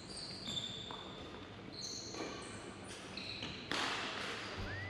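Sports shoes squeaking in short, high chirps on a wooden sports-hall floor as badminton players move, with a few sharp racket hits on the shuttlecock, the loudest near the end, ringing in a reverberant hall.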